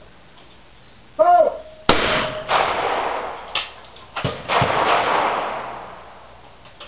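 A shooter's short shouted call for the clay about a second in, followed by a string of shotgun shots from the firing line. Each shot has a long echoing tail under the covered stand.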